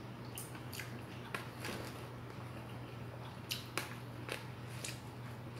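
Metal fork and spoon clicking and scraping against a plastic takeout container as food is scooped up: a scattering of short, sharp clicks, several near the start and a cluster in the second half, over a steady low hum.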